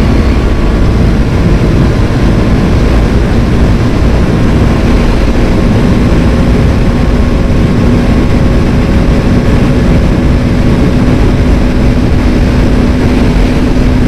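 Motorcycle engine droning at steady revs while riding at speed, under a loud, continuous rush of wind noise.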